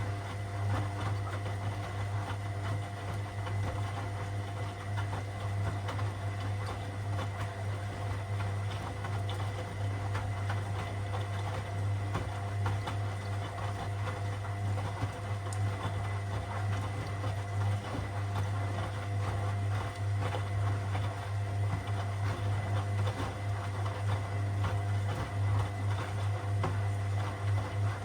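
Washing machine running mid-cycle: a steady low motor hum with a faint steady whine and a fast, continuous rattle over it.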